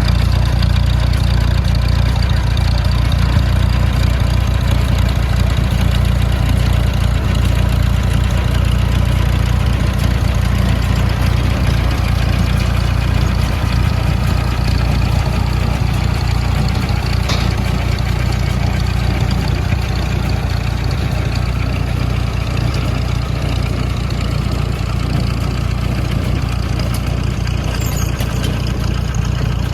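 Tractor engine running steadily under load while pulling a hay rake through alfalfa.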